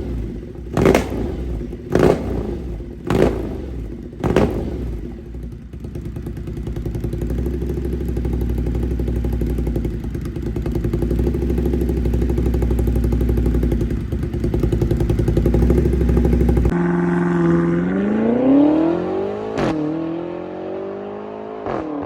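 Ducati Monster's V-twin engine through an SC Project aftermarket exhaust. It is blipped sharply four times about a second apart, then runs steadily. Near the end it accelerates with a rising pitch, broken by one brief drop like a gear change.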